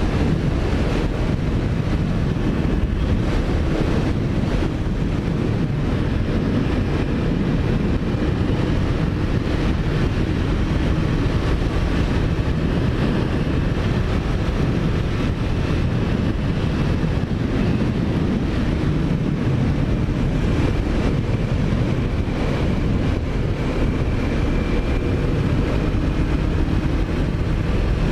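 Wind rushing over a helmet-mounted microphone on a moving motorcycle, with a Kawasaki Ninja 400's parallel-twin engine running steadily beneath it.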